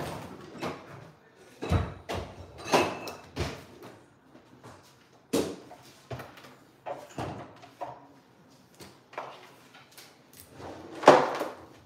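Kitchen clatter as things are put away: a string of separate knocks and bumps of doors and drawers shutting, the loudest bang near the end.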